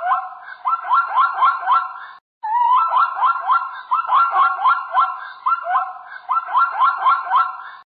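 An animal giving rapid series of short, rising, squealing calls, about four or five a second. They break off suddenly about two seconds in and then resume.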